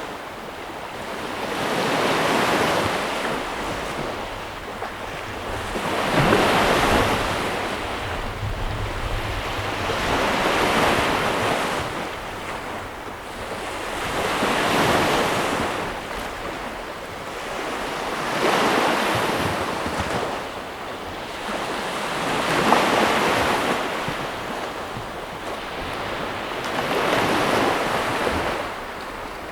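Ocean surf: a steady rush of water that swells as waves break, in slow, even surges about every four seconds.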